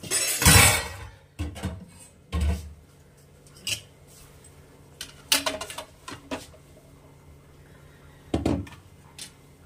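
Metal cookware clattering on a gas cooktop as kadais are handled. There is one loud clatter about half a second in, then scattered knocks and clinks.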